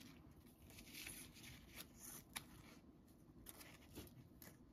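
Faint rustling of paper and craft pieces being handled and sorted, with a few soft clicks, one sharper click about halfway through.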